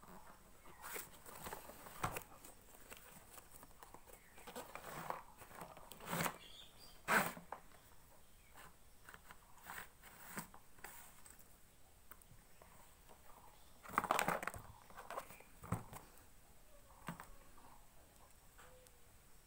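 Packaging and a selfie stick being handled during unboxing: cardboard and plastic rustling and crinkling, with scattered clicks and knocks. The loudest come about 7 seconds in and in a cluster around 14 seconds.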